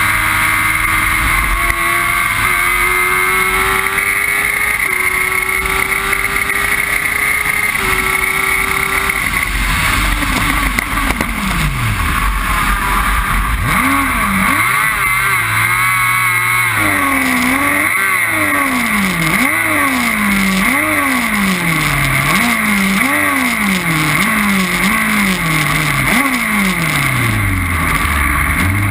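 Formula Jedi single-seater's motorcycle engine heard from the cockpit: held at high revs for the first nine seconds or so, then dropping away as the car slows. From about halfway through, the revs rise and fall repeatedly, roughly once a second.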